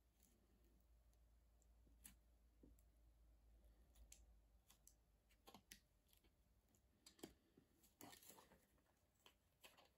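Near silence with a handful of faint, short clicks and taps from the parts of a disassembled hot glue gun being handled on a workbench.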